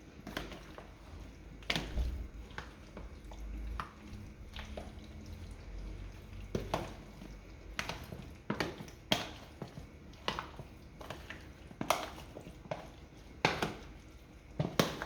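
Marinated olives being handled or stirred in their oily marinade: about a dozen irregular sharp clicks with wet squishing.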